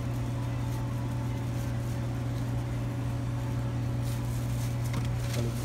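Steady low machine hum of kitchen equipment, with a few faint light rustles near the end.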